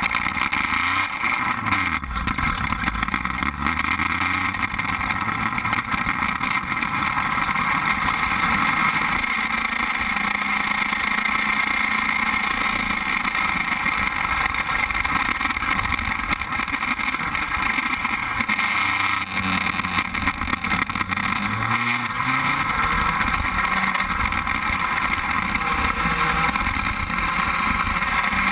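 Open-wheel formula race car's engine running hard on track, heard from an onboard camera by the driver's helmet with a constant rushing noise. The engine note falls and then climbs again about two-thirds of the way through.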